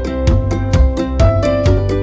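Background music with a steady beat of about four beats a second over a strong bass line.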